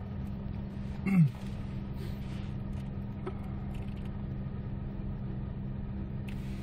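Hyundai Avante MD's 1.6-litre GDI four-cylinder idling at a standstill, a steady low hum heard inside the cabin. About a second in, a short vocal 'hmm' falls in pitch.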